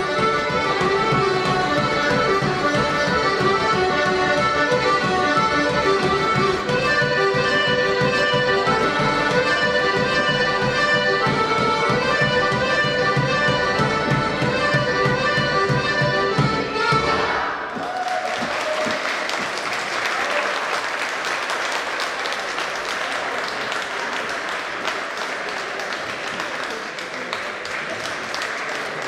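Serbian folk dance music with a steady beat, accordion to the fore, which stops abruptly a little past halfway. Audience applause follows to the end.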